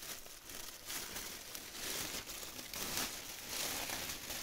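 Clear plastic bag wrapped around a flat-screen TV crinkling and rustling in uneven strokes as it is pulled and worked loose.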